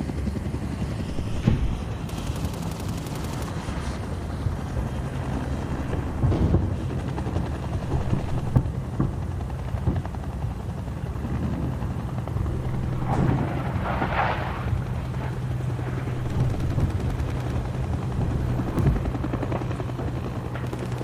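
Battle sound effect: scattered gunshots and machine-gun fire over a steady low engine drone, with a rushing burst about two-thirds of the way through.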